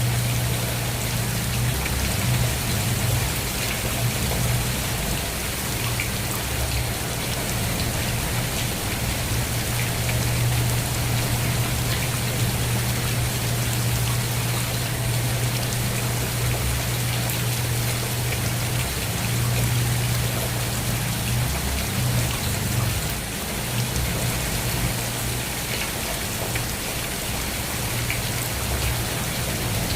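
Steady, even rainfall, a dense hiss of raindrops on a surface, with a constant low hum underneath.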